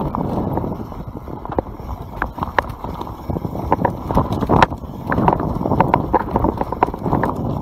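YT Capra enduro mountain bike ridden down a dirt forest trail: wind rumble on the microphone under a rapid clatter of the bike over roots and stones, busiest in the middle.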